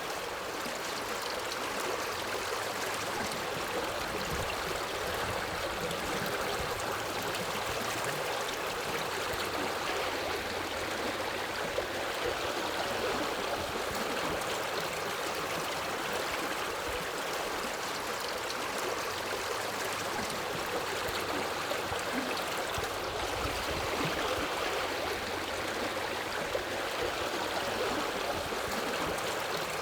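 Forest river water flowing over rocks: a steady, even rushing with gurgling.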